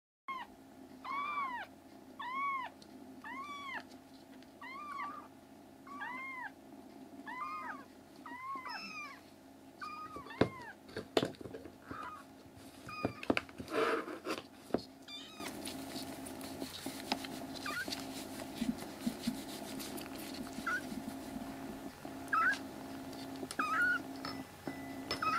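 Tiny black kitten meowing over and over, high-pitched cries that each rise and fall, about one a second at first. After a stretch of handling rustles and knocks, it gives a few shorter meows near the end.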